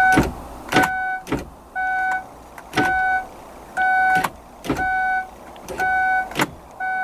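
A 2005 Kia Sedona's warning chime beeping steadily, about once a second, with sharp clicks in between the beeps.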